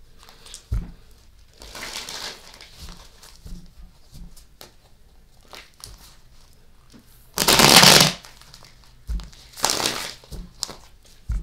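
A tarot deck being shuffled by hand: a few short bursts of card noise, the loudest a little over seven seconds in, with several dull knocks in between.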